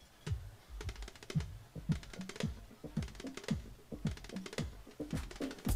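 Hand-played dhol (double-headed barrel drum) beating a quick rhythm of about three to four strokes a second, mixing low strokes with sharp, high slaps.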